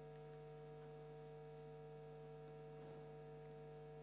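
Near silence: a faint, steady electrical hum made of several constant tones.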